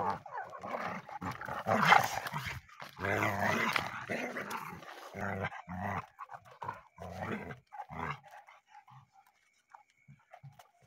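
Dogs growling as they grapple and fight, in rough repeated spells, loudest about two seconds in, dying down after about eight seconds to a few faint growls.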